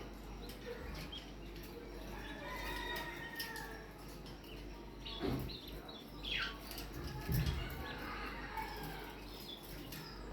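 Pet budgerigars chattering: a steady run of warbling chirps and short falling squeaks.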